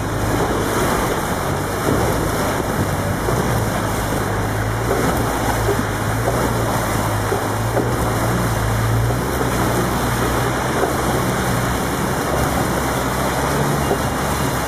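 Safari four-wheel-drive vehicle driving through shallow floodwater: the engine runs with a steady low hum under a constant wash of splashing water and wind on the microphone.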